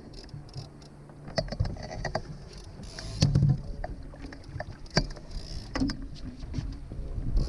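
Laser sailing dinghy under way: water splashing against the hull, with irregular knocks and clicks from the boat and its fittings, the loudest a thump about three seconds in.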